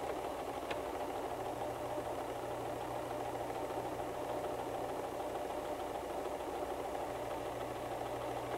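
White 1735 sewing machine running steadily, stitching a straight seam along a zipper with the zipper foot.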